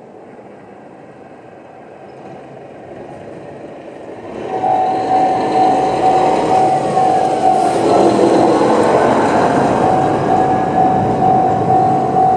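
Level-crossing electronic warning bell of the JR Central type, starting about four seconds in and repeating a steady pulsed tone. Under it, the engine and wheels of an AT-550 series diesel railcar grow louder.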